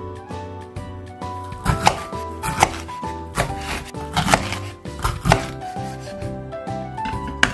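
Kitchen knife cutting Japanese green peppers in half on a wooden cutting board: several sharp, irregularly spaced knocks of the blade hitting the board, over background music.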